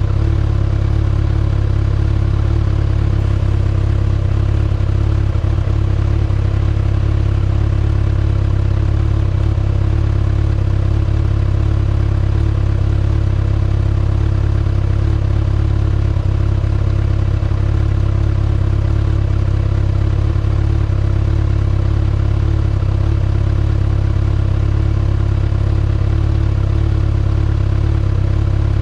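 2019 Kawasaki ZX6R's inline-four engine idling steadily through its stock exhaust, at an even, unchanging speed with no revving.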